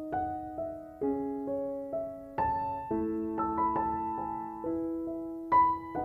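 Background piano music: slow, gentle notes and chords, each struck and left to ring and fade.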